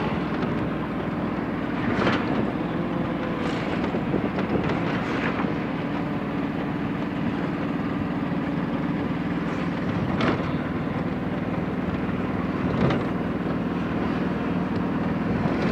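Steady engine hum and road noise from a vehicle driving at speed, with wind on the microphone and a few brief louder whooshes.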